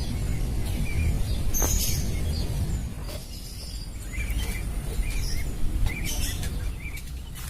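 Small birds chirping in short, quick calls, most of them in the second half, over a steady low rumble.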